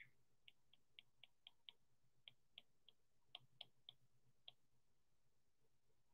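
Faint, quick taps of an Apple Pencil's plastic tip on the iPad Pro's glass screen as short strokes are drawn: a run of light clicks, about three or four a second, that stops about four and a half seconds in.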